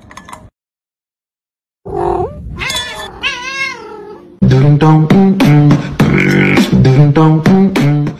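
A cat meowing a few times, followed about four seconds in by loud vocal music with a steady rhythm.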